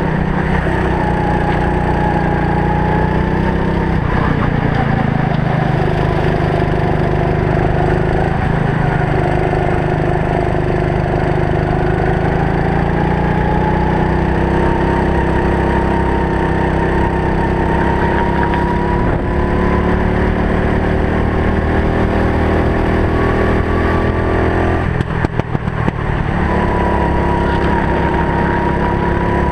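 Racing kart engine heard from the driver's helmet, running hard. Its pitch climbs slowly and then drops again as the kart accelerates and slows lap after lap, and it breaks up briefly near the end.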